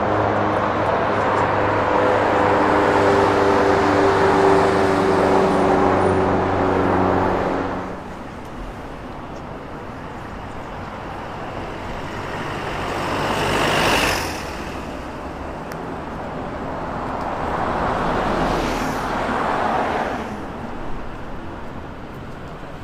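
Street traffic: a motor vehicle's engine and tyres run loud and close for about eight seconds before fading, then two more vehicles pass by, about halfway through and again near the end.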